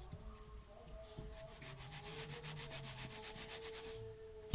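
A steel trowel scraping and rubbing wet cement mix in a mould in fast, even strokes, about eight a second, ending in one sharp knock.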